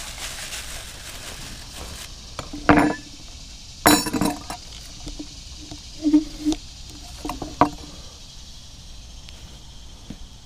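Metal silverware clinking and tapping against a plate: several short, separate clinks a second or two apart, some ringing briefly.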